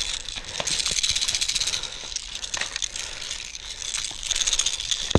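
Airsoft guns firing rapid full-auto bursts, a fast dry rattle of shots. There are two long bursts, one in the first couple of seconds and another about four seconds in.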